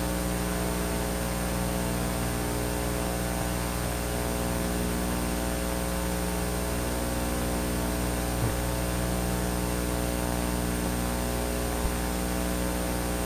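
Steady electrical mains hum and buzz with hiss from the sound system or recording chain, a steady drone with no speech over it, broken twice by a faint click.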